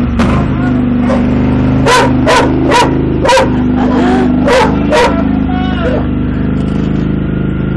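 A dog barks six times in short pairs, between about two and five seconds in, over the steady running of a riding lawn mower's engine.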